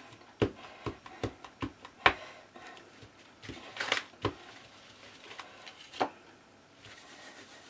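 A Distress Ink pad in a plastic case dabbed repeatedly onto cotton ribbon laid on paper, giving irregular light taps about every half second, with a brief rustle of paper near the middle.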